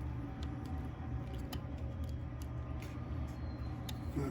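Small droop screw being driven into a plastic suspension arm of a Wltoys 144001 RC car, giving faint scattered ticks and clicks over a steady low hum.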